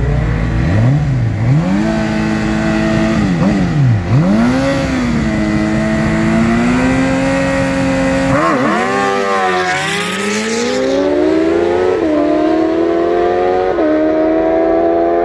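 Sport-bike engines revving in short blips at the start line and then holding revs. About eight seconds in they launch and accelerate hard, the engine note climbing through the gears with quick upshifts that drop the pitch twice.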